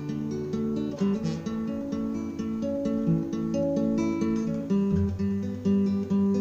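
Acoustic guitar strummed in a steady rhythm through an instrumental break between sung lines, with deeper bass notes joining about five seconds in.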